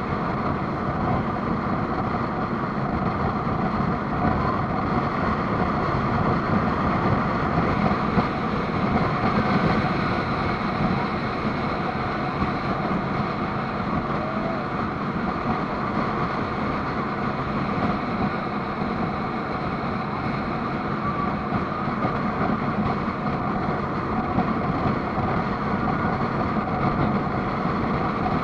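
Tourist speedboat's engine running steadily while the boat is under way, a dense, unbroken noise with no change in level.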